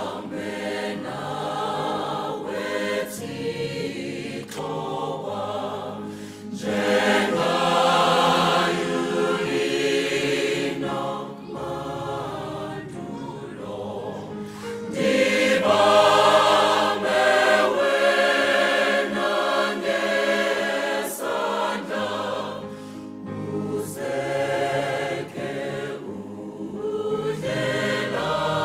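Large mixed choir of men's and women's voices singing a slow hymn in harmony, swelling louder about seven seconds in and again about fifteen seconds in.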